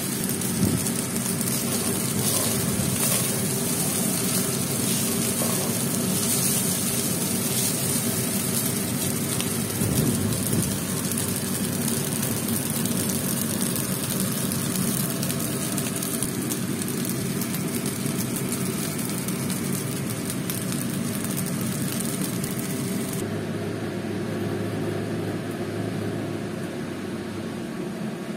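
Fried rice sizzling in a hot pan as it is stirred with a spatula, with a few scrapes and clicks. Near the end the sizzle stops, leaving a steady low hum.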